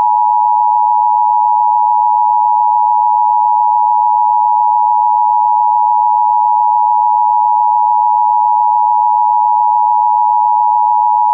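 Emergency alert attention tone: a loud, steady electronic tone near 1 kHz held unbroken, signalling that an emergency message follows.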